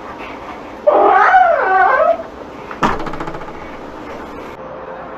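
A dog gives one wavering, rising-and-falling whine lasting just over a second. It is followed by a sharp click with a short, quick rattle.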